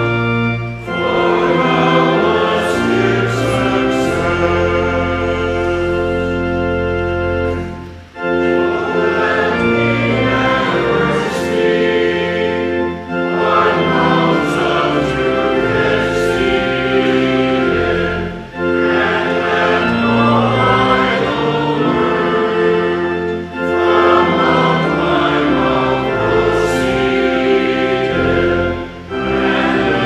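Congregation singing a multi-verse hymn in unison with instrumental accompaniment and held bass notes. Each line is sung in long held notes, with a brief breath between phrases about every five seconds.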